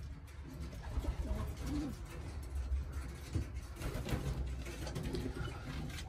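Racing pigeons cooing in a loft, low repeated coos, with a short flutter of wingbeats as one bird flies up about four seconds in.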